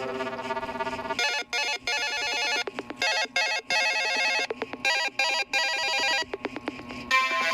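Lenovo A318 mobile phone ringtone: an electronic telephone-bell ring, trilling in short repeated bursts with brief gaps, starting about a second in after the tail of a previous tone, with another ringtone tune beginning near the end.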